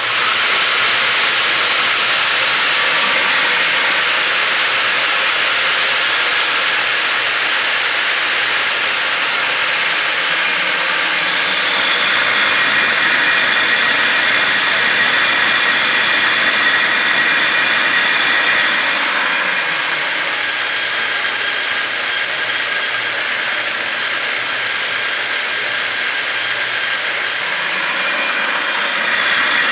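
Homemade bucket grain mill running loud and steady, its electric motor spinning a brush-cutter blade inside a plastic bucket to chop dry corn kernels into grits. A higher whine comes in for several seconds midway and again near the end.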